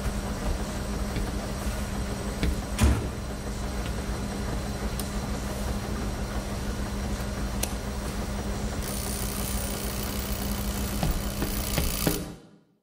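Steady hum and low rumble of laundromat washing machines running, with a few faint clicks and one sharp knock about three seconds in. A hiss joins near the end, then the sound cuts off abruptly.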